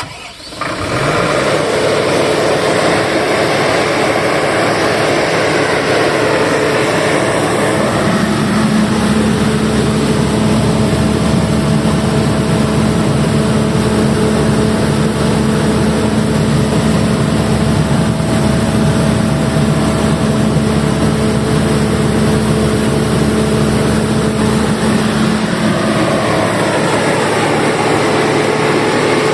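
Deutz diesel engine of a 150 kVA generator set starting and coming up to speed within the first second, then running steadily. Its note shifts for a long stretch in the middle, then returns to the first pitch.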